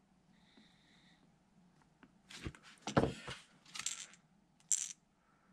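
Crankbait being handled and set down: several short clattering clicks and knocks, starting about two seconds in.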